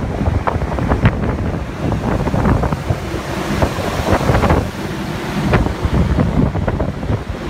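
Wind buffeting the microphone in irregular gusts on a moving ferry's open deck, over the rush of the sea.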